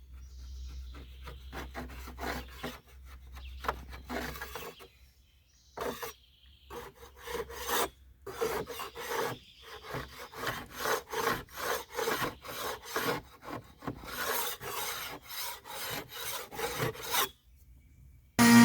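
Sandpaper being rubbed by hand over the inside of a boat hull in quick back-and-forth strokes, about two a second, stopping shortly before the end.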